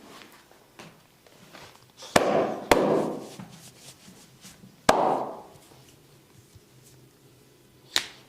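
Loud skin cracking from a barber's hands during a massage. There are three sharp cracks about two, two and a half and five seconds in, each trailing off briefly, and a lighter snap near the end.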